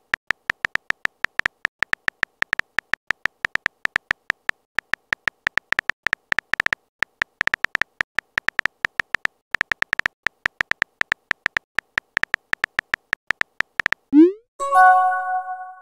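Texting-app keyboard sound effect: quick, uneven runs of short, sharp clicks as a message is typed letter by letter. Near the end comes a fast rising swoosh, then a bright chime of several notes ringing out as the message is sent.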